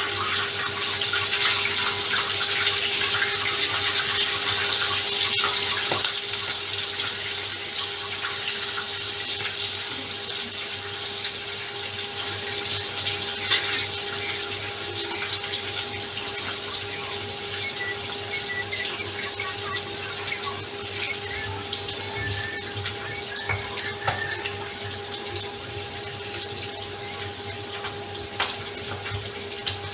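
Kitchen tap running into a sink while dishes are washed, a steady hiss of water, louder for the first six seconds or so, with scattered light clinks of dishes. A steady hum sits under it.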